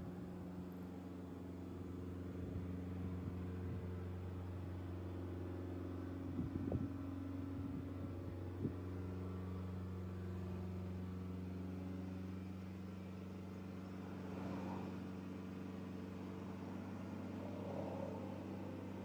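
Lancia Delta HF Integrale Evoluzione I's turbocharged four-cylinder engine running at a steady pitch, a low even drone. There are a couple of short clicks about a third of the way in.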